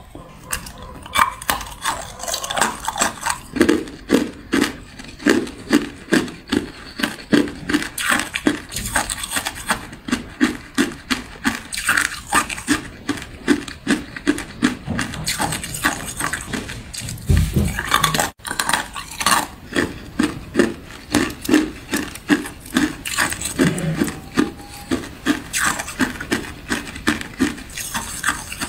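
Thin sheet ice being bitten and chewed: a steady run of crisp crunches and cracks, about two a second.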